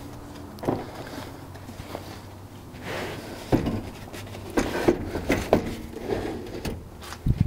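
Epoch LiFePO4 golf cart batteries being set down and shuffled into the cart's battery cradle: a series of hard-case knocks and clunks, the loudest few in the second half.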